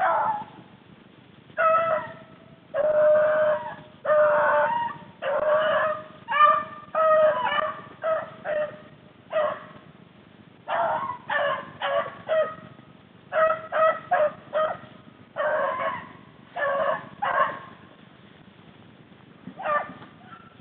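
Rabbit-hunting hounds baying in a fast string of calls, some short and some drawn out for about a second: the dogs giving mouth as they run a rabbit's trail. The calls thin out late, with one last call near the end.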